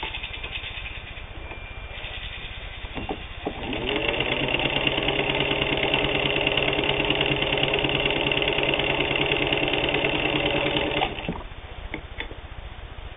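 Singer 15-91 sewing machine, with its internal potted motor and gear drive, spinning up quickly to a steady high speed and stitching through two layers of denim. It runs evenly for about seven seconds and then stops abruptly.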